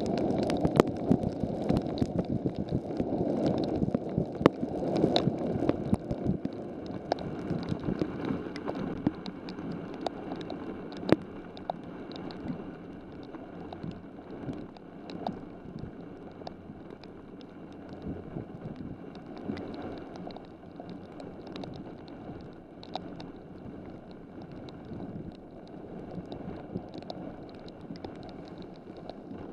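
Heavy rain pouring down, a dense rush with many sharp drop ticks and splashes; it is heaviest for the first several seconds, then eases to a steadier, lighter downpour.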